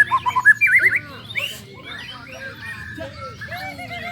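White-rumped shamas singing, several birds overlapping: loud, rapid whistled phrases in the first second, then quieter mixed chirping and warbling.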